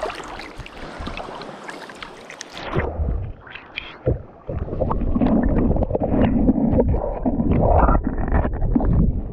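Creek water splashing and gurgling right at the microphone. About three seconds in the sound turns muffled and low, like the microphone dipping into the water.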